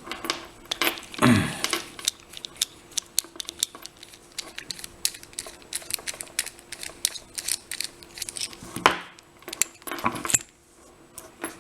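Rapid light metallic clicks and rattles of a picked American Lock 1105 series padlock and its steel picking tools being worked, with a couple of louder clunks, about a second in and about nine seconds in.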